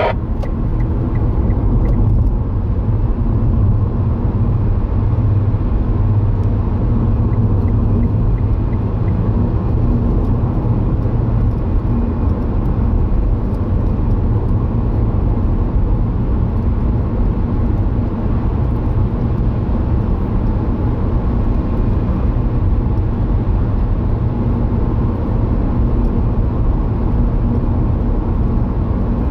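Steady engine and tyre rumble of a car driving at road speed, heard inside the cabin.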